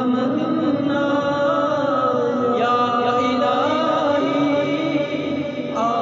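A voice chanting an Islamic devotional recitation in praise of the Prophet, sung in long held notes that waver and bend in pitch.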